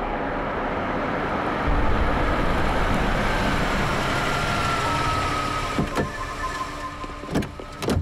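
Engines of arriving vintage motor vehicles running with a steady low rumble that grows louder about two seconds in. A few sharp knocks come near the end.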